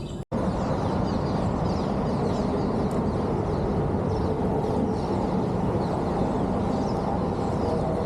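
Steady rushing outdoor noise, the sound of running water or wind, with many short bird chirps above it. It comes in right after a brief dropout about a quarter second in.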